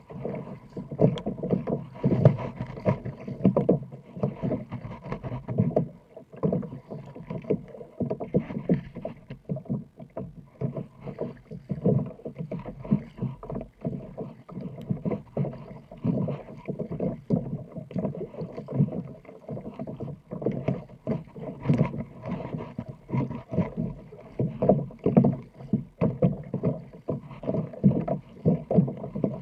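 Water slapping against the hull of a sit-on-top kayak and paddle blades dipping as it is paddled through choppy water: a constant run of short, irregular splashes.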